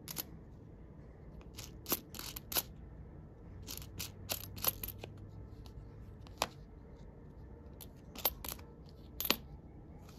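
Nickels clinking against one another as fingers spread out and pick through a roll of coins: a dozen or so light, irregular clicks, a cluster of them around four to five seconds in and the sharpest one near the end.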